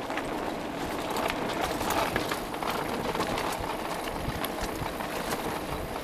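Mountain bike rolling over a bumpy grass-and-dirt track: steady rolling noise from the tyres with frequent small rattling clicks from the bike and camera mount.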